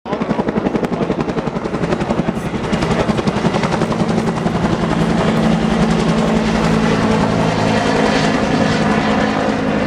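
Helicopter flying low past, its rotor beating in fast, even pulses, about five or six a second, that blend into a steady drone after a few seconds.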